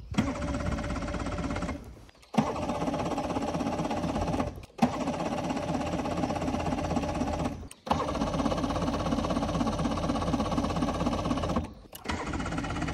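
Bass boat's outboard motor running at idle with a fast, even pulse. It breaks off abruptly four times.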